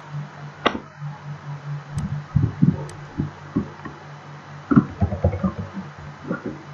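Computer keyboard typing and mouse clicks: a few sharp clicks, then runs of short dull taps, over a steady low hum.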